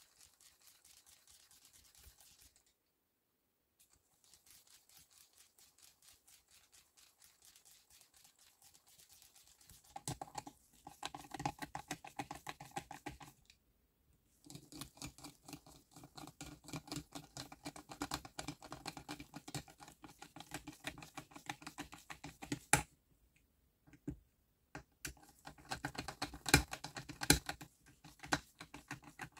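A screwdriver turning screws in the metal gear housing of a Milwaukee M18 circular saw: fast runs of metal ticking and scraping, pausing briefly between screws. A few sharper clicks come in the last seconds.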